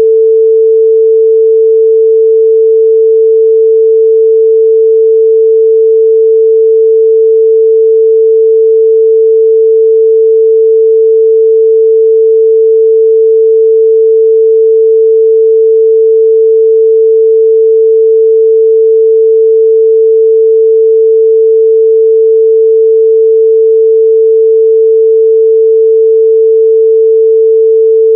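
A steady, loud 445 Hz pure sine tone, one unchanging pitch with no overtones: a test tone for checking speaker and headphone response in the midrange.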